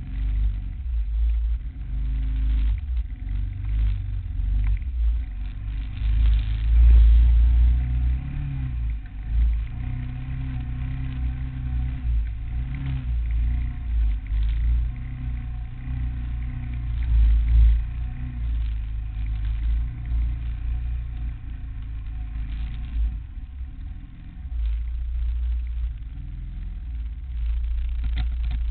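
ATV engine running close up, its throttle rising and falling as the quad rides through mud.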